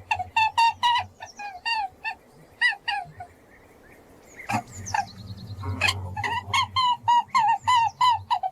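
Rabbit squeaking in a rapid series of short, high chirps, about four or five a second, breaking off for a second or so in the middle, where a couple of sharp clicks are heard, before the chirping resumes.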